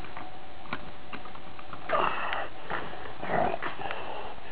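Two short sniffs close to the microphone, the first about two seconds in and the second a little over a second later, over a steady hiss. A few light plastic clicks come from the toy robot being handled.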